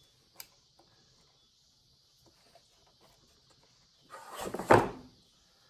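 Nylon zip tie being pulled tight through its ratchet to fasten a wire, a quick zipping rattle about a second long that grows louder toward its end, about four seconds in.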